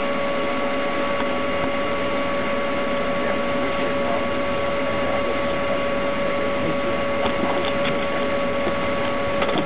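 Steady cabin noise of a moving police patrol car, with a constant high whine running unchanged over it and a few short clicks near the end.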